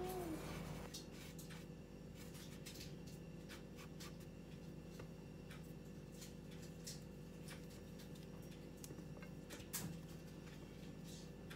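Faint scratching and rustling of fingers working dry flour in a bowl, over a steady low hum, with one sharper tap about ten seconds in.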